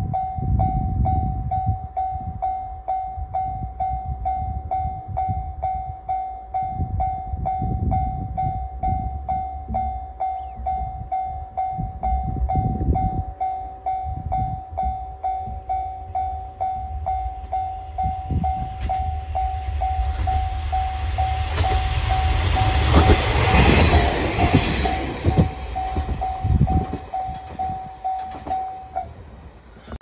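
A level-crossing warning bell rings steadily while a train approaches along the electrified line and passes. The passing train's wheel and rail noise is loudest about three quarters of the way through, and the bell stops just before the end.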